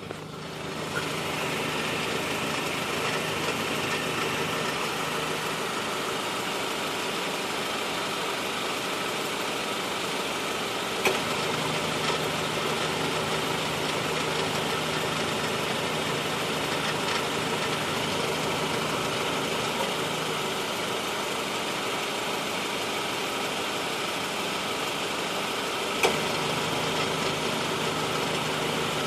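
2013 Honda Civic engine idling with the air conditioning on, carrying a low steady hum that drops out and comes back, with two sharp clicks, about a third of the way in and near the end. The owner reports the noise only when cold with the AC running, and it goes away when the clutch pedal is pressed; he takes it for an AC clutch noise.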